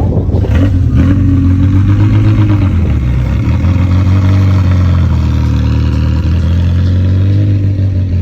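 Ferrari supercar engine running loudly at low revs, its note steady with slight rises and dips in pitch.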